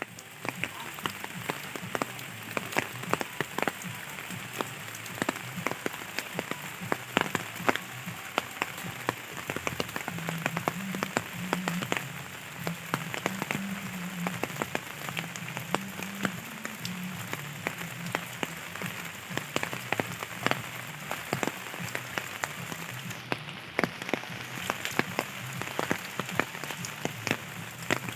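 Steady rain falling, with many individual drops striking a hard surface as sharp ticks over an even hiss.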